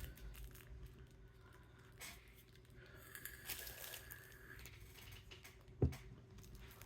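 Faint rustling and crinkling of plastic packaging as small kit packets are handled, with a few light taps and one short low thump near the end.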